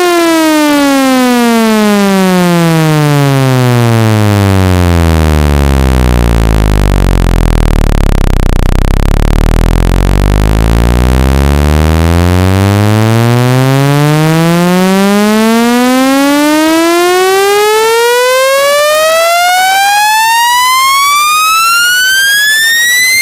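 Loud, buzzy synthesized test tone sweeping in pitch: it slides down to a deep rumble, holds at the bottom for about six seconds, then climbs steadily to a high whine near the end. It is a speaker-cleaning sweep, played to shake dust and water out of a phone speaker.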